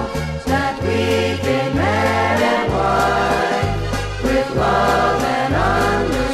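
Accordion-led Slovenian-style polka music played from a 45 rpm record, with sustained chords over a steady bass line.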